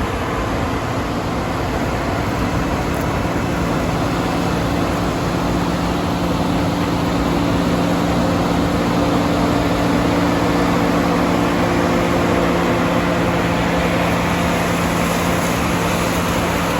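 New Holland CR9080 combine harvester running at work: a steady diesel and threshing drone with a low hum that strengthens through the middle, over a rough, dense rumble.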